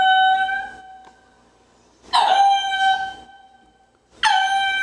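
Ring-tailed lemur calling: long pitched calls about every two seconds, each dropping quickly at the start and then held on one steady pitch for about a second. One call is already sounding at the start and ends about a second in, a second comes about two seconds in, and a third begins near the end.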